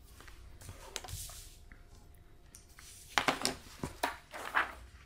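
Sheet of paper sliding and rustling on a desk as it is repositioned, with a few short scrapes about three seconds in and again near the end.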